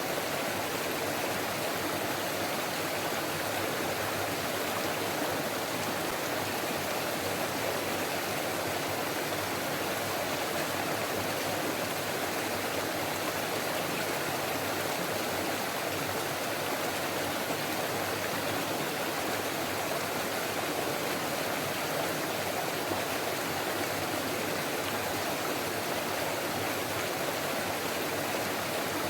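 Forest stream flowing, a steady, even babbling rush of water that doesn't change.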